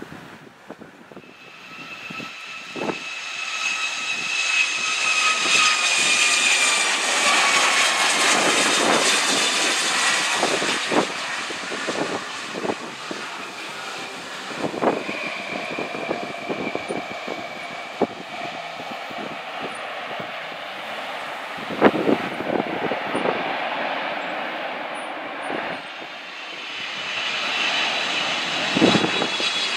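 Twin-engine jet airliner's turbofan engines running: a high whine over a broad rush that swells over the first few seconds, then eases off, the whine sliding slowly lower in pitch. The engine sound swells again near the end.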